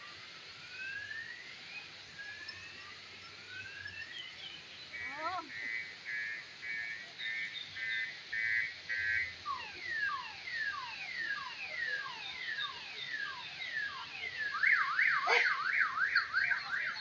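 A multi-tone electronic alarm cycling through its patterns: repeated rising whoops, then about two beeps a second, then a run of falling sweeps, and a fast up-and-down warble near the end.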